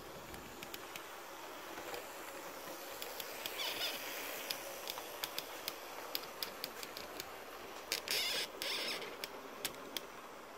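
Dry, unoiled tripod pan head squeaking and creaking as it turns to follow a model train, with irregular sharp clicks and two louder squeals, a short one a few seconds in and a longer one near the end. Under it runs the steady quiet noise of the model locomotive and coaches moving along the track.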